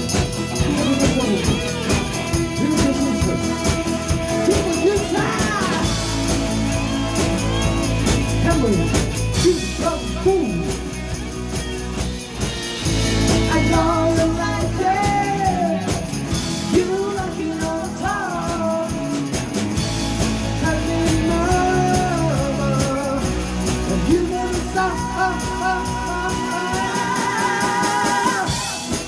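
Eight-piece rock band playing live: a lead vocal sung over electric guitars, bass, keyboard and drums.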